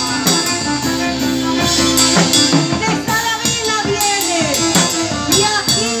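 Live band music: a bombo legüero and a small drum kit with snare and cymbals beat a steady rhythm under an acoustic guitar and singing.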